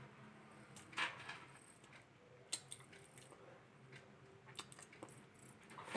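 Close-up eating sounds: chewing, with scattered brief clicks and wet smacks, the loudest about a second in.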